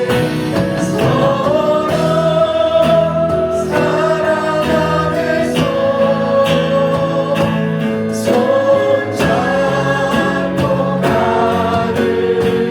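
Church worship team singing a hymn in several voices over instrumental accompaniment, holding long notes that slide up into each phrase.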